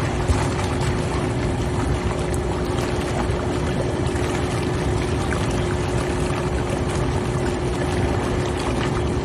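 Hot tub jets running: water churning and bubbling steadily over the even hum of the pump.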